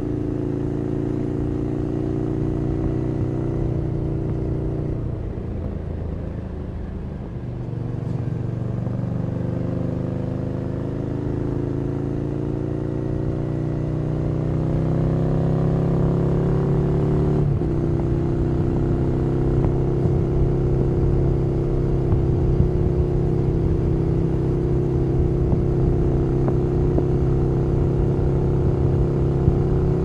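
Ducati Scrambler Nightshift's air-cooled L-twin running through a Zard Zuma Euro5 slip-on exhaust on the move. It eases off about five seconds in, then pulls with a steadily rising pitch. A little past halfway it shifts up, with a sudden drop in pitch, and then runs steady and a little louder.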